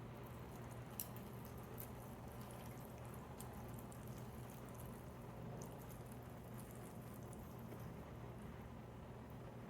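Faint wet chewing and mouth sounds from close-miked eating, small sharp clicks scattered throughout with a sharper one about a second in, over a steady low hum.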